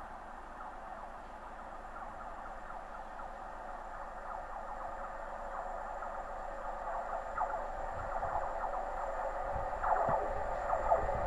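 Steam locomotive LNER Class A1 Pacific 60163 Tornado approaching with its train, its sound growing steadily louder: first a mid-pitched hiss with a faint ringing, then a low rumble coming in over the last few seconds.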